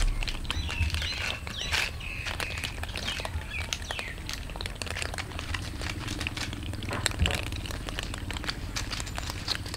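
Many cats eating dry kibble off concrete: a dense patter of small crunches and clicks. It opens with a low thump, and a few high chirping calls come in the first two seconds.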